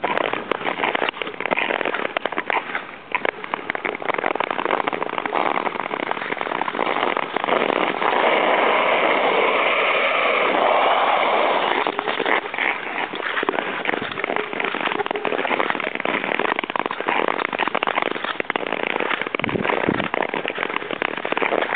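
Long-distance skate blades scraping and crackling over snow-dusted natural lake ice as the skater strides along, a dense run of small clicks and hiss that grows steadier and louder for a few seconds in the middle.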